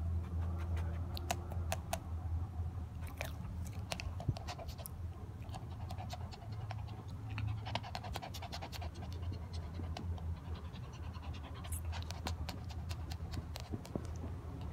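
Small dog panting and making wet mouth and licking sounds close to the microphone, with many sharp clicks and a steady low hum underneath.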